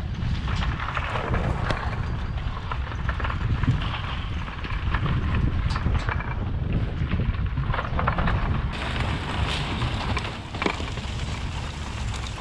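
Pickup truck driving slowly across rough pasture, its engine a steady low rumble, while the chain-link-fence drag harrow it tows rattles and clatters over the ground in scattered clicks and knocks.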